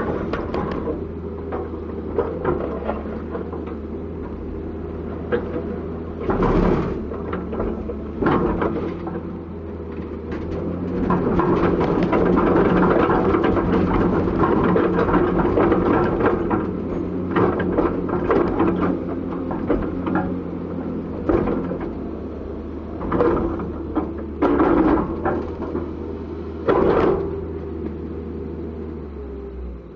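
Komatsu PC200-7 hydraulic excavator's diesel engine running steadily, working harder and louder for a few seconds in the middle. Several sharp knocks come through at intervals over the engine.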